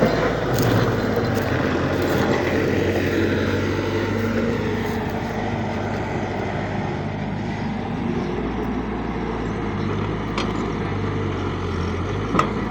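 Excavator's diesel engine running steadily, with a few short clicks or knocks near the end.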